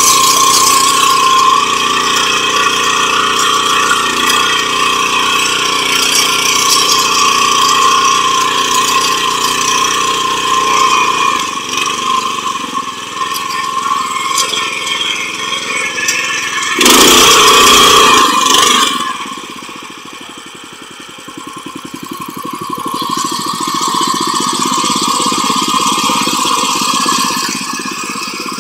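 The 7 hp power weeder's small engine running steadily, its note changing about halfway through. A loud rush of noise lasts about two seconds, then the engine drops away briefly and builds up again.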